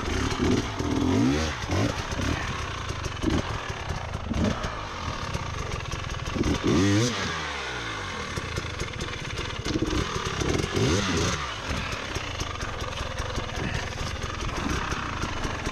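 Dirt bike engine revving in repeated bursts, its pitch rising and falling several times, the strongest rev about seven seconds in, as the rider lofts the front wheel up a rock step.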